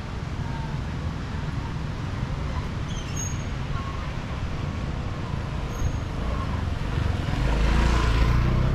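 Steady low rumble of road traffic, swelling louder about seven seconds in.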